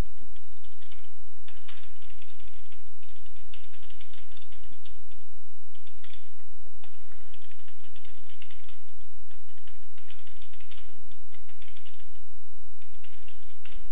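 Typing on a computer keyboard: runs of quick keystrokes with brief pauses between them.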